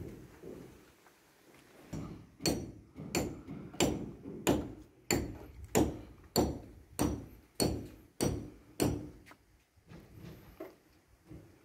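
Hammer blows on a building site: about a dozen sharp, evenly spaced strikes, roughly one and a half a second, each with a faint high ring. They start about two seconds in and stop near nine seconds.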